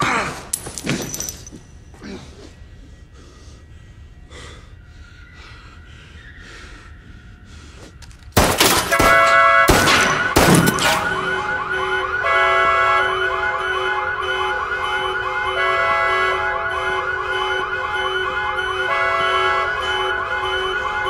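A car alarm goes off about eight seconds in and keeps cycling through repeated electronic tones, changing its pattern every second or two. Just as it starts come three loud bangs about a second apart. Before that, a loud crash fades away in the first second or two into a quiet stretch.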